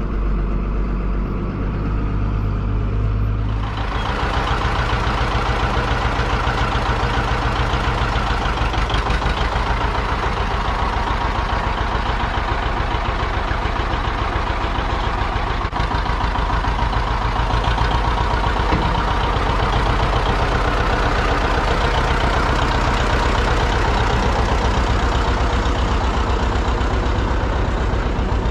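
A farm machine's engine running steadily. About four seconds in it gets much louder and rougher, as if throttled up or put under load, and it stays that way.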